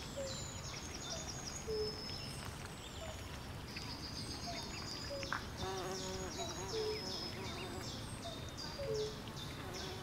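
Swamp birdsong: several small birds chirping and trilling in quick high notes, with short lower calls recurring about once a second and a brief deeper call just past the middle, over a steady low background hum.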